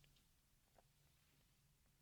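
Near silence: a pause with only faint room tone.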